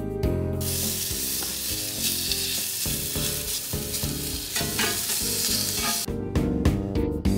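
Bacon pieces sizzling in a hot cast iron skillet as they are dropped in and stirred with a spatula. The sizzle starts about half a second in and cuts off sharply about six seconds in, over background music that continues alone afterwards.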